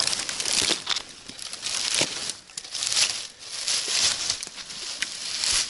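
Dry forest-floor litter rustling and crackling in uneven swells, with a few sharp clicks among it.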